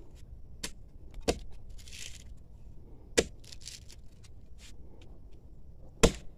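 Axe blows chopping into the thick bark of a jatobá tree trunk, chipping a piece of bark loose: three sharp strikes about two to three seconds apart, with a fainter one before the first and bark crackling between blows.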